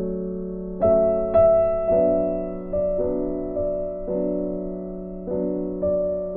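Soft background piano music, slow chords with notes struck every second or so and left ringing.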